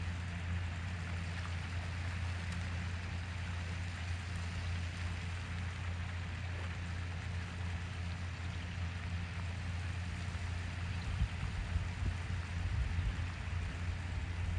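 Steady rain-like hiss of a pond spray fountain, with a low steady hum underneath. Near the end a hooked fish splashes at the surface as it is reeled in.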